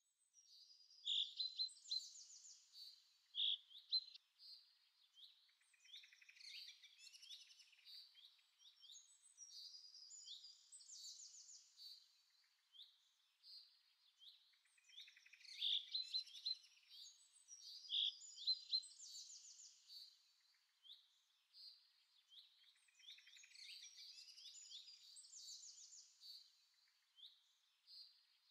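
Faint birdsong: chirps and short trills, with a cluster of louder chirps that repeats about every 14 seconds, like a looped background recording.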